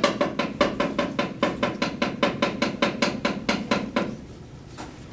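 Rapid wooden knocking of a dalang's cepala (hand-held knocker) against the wooden puppet chest, about six even knocks a second for some four seconds, then stopping, with a single knock near the end.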